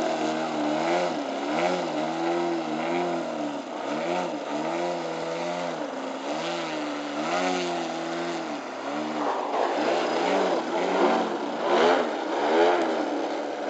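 Radio-controlled aerobatic model airplane's motor and propeller running, the pitch rising and falling again and again. From about nine seconds in a second model plane joins, and the two tones overlap.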